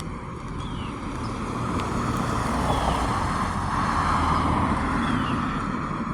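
A passing car on the road: tyre and engine noise swells, peaks about four seconds in, then fades.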